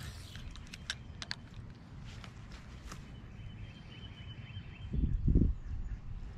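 Fishing rod and reel being handled and cast: a few sharp clicks, then a thin steady whirr for about two seconds as line runs off the reel. Near the end come a couple of loud low thumps.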